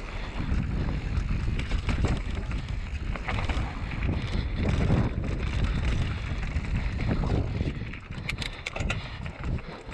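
Mountain bike riding down a dirt singletrack trail: rumble of the tyres on dirt and rattling of the bike over bumps, with wind buffeting the microphone. A quick run of sharp clicks comes near the end.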